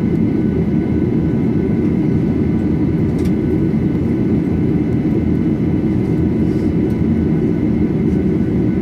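Cabin noise of a Boeing 737-800 standing with its CFM56-7B engines running at idle: a steady low rumble with faint steady whine tones above it.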